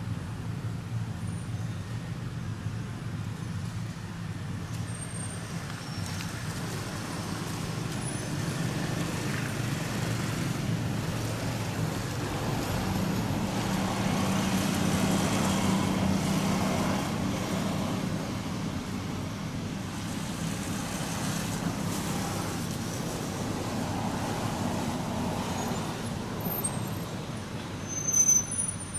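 Steady low rumble of motor vehicle engines, like passing road traffic, swelling and fading around the middle. Near the end come a few short high-pitched chirps and a brief louder burst.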